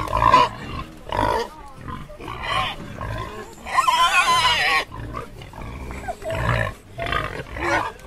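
Warthogs at close range making a string of short calls, with one longer, wavering high call about four seconds in.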